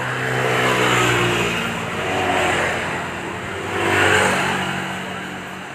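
A motor vehicle's engine running, with a hiss that swells and fades a few times like traffic passing.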